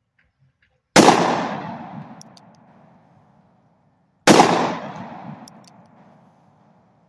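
Two shots from a stainless Charter Arms Bulldog 5-shot snub-nose revolver in .45 Colt, firing 225-grain semi-jacketed flat points, about three seconds apart. Each report is followed by a long echo that dies away over about two seconds.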